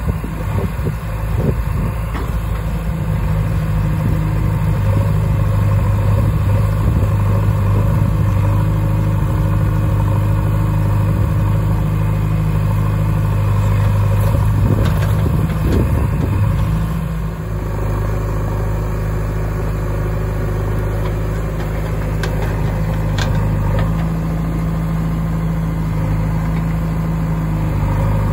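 Diesel engines of a JCB 3DX backhoe loader and a Mahindra 575 DI tractor running steadily at low revs while the backhoe loads mud into the tractor's trolley. There are a few knocks and some clatter about halfway through, as a bucket of soil is tipped in, and the engine note changes slightly just after.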